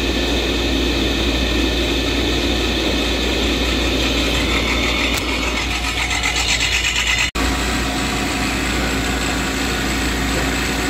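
Replacement electric motor running steadily, driving the paper cutter's flywheel through a belt on a test run: a steady machine hum with a low drone. It pulses briefly near the middle and drops out for an instant about seven seconds in.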